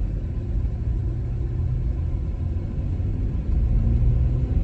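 Steady road and engine rumble inside a moving car's cabin, getting a little louder near the end.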